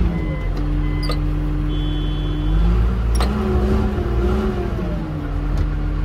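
Bulldozer's diesel engine running with its pitch stepping up and down, while a backup alarm beeps in short repeats for about the first second. A couple of sharp clicks sound near one and three seconds in.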